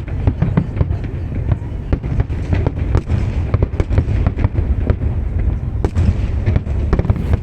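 Aerial fireworks display: a rapid, continuous run of sharp crackles and bangs over a steady low rumble of booming shells.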